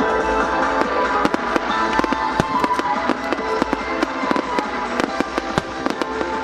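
Aerial firework shells bursting in a rapid, irregular string of sharp bangs, several a second, with music playing underneath.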